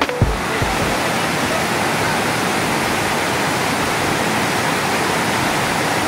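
Steady rushing of water pouring down river cascades and a waterfall, a constant even hiss. The last beats of background music die away in the first second.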